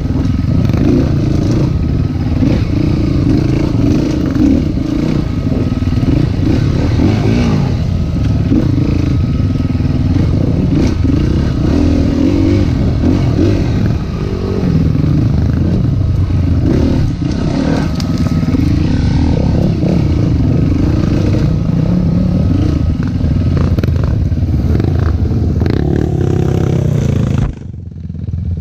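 Off-road dirt bike engine running under load on a rough trail, its pitch rising and falling as the throttle is worked, with rattle from the bike over the bumps. Near the end it drops suddenly to a quiet steady idle.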